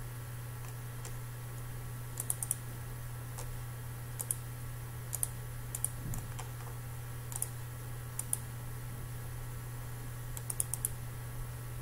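Computer mouse buttons clicking: sharp single clicks and quick runs of two to four, spaced a second or two apart, over a steady low hum.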